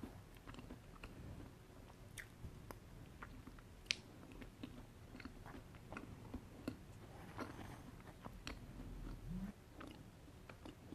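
Close-up chewing of soft chocolate cake with frosting, with small wet mouth clicks throughout and one sharper click about four seconds in.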